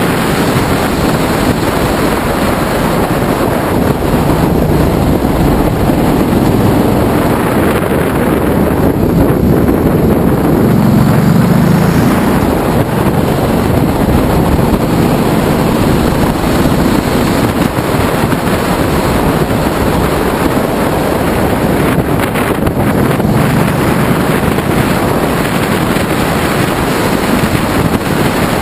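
Loud wind rush on a motorcycle-mounted camera's microphone while riding a Ducati Multistrada, with the bike's engine running underneath. The low rumble swells a little about ten seconds in.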